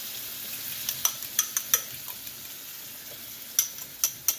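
Shrimp and sausage frying in hot oil in a wok, a steady sizzle with several sharp clicks and clinks over it, some ringing briefly.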